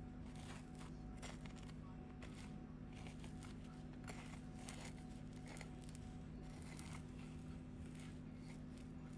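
Knife scraping butter across a slice of crusty homemade bread: many short, irregular scratchy crackles over a steady low hum.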